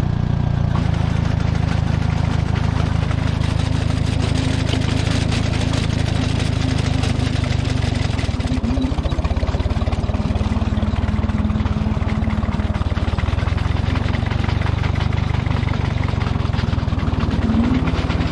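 Minneapolis Moline tractor engine running steadily at low revs as it drives its sickle bar mower into the pasture grass. About eight seconds in, the sound turns rougher.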